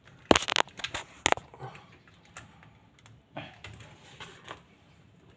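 Hand tools working on electrical wire: pliers clicking and snapping, with two loud sharp clicks in the first second and a half, then lighter scattered clicks and handling rustle.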